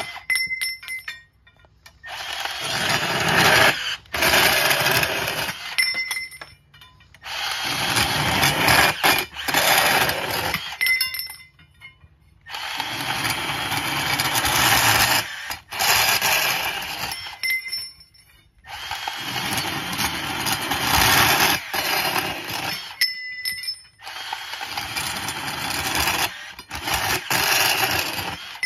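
Milwaukee portable bandsaw cutting through iron balusters: a run of about five cuts, each a few seconds of blade-on-metal sawing, with short pauses between them.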